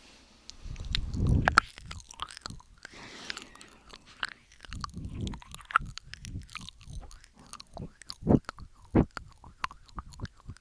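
Close-miked ASMR mouth sounds: a run of wet clicks and pops from the lips and tongue, with a few fuller, louder pops.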